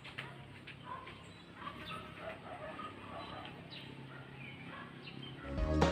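Faint distant voices and short bird chirps over a low steady hum. Loud music starts abruptly near the end.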